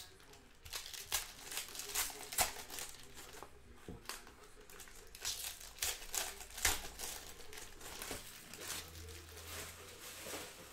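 Foil trading-card pack wrappers being torn open and crumpled by hand: a dense, irregular run of sharp crinkles and crackles, loudest about two and a half and seven seconds in.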